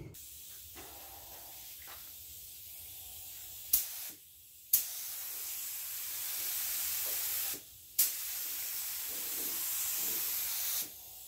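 SprayIt LVLP gravity-feed spray gun spraying primer, its air hiss coming in bursts as the trigger is pulled and released. There is a short pop of air about four seconds in, then two passes of about three seconds each, each starting with a sharp burst of air.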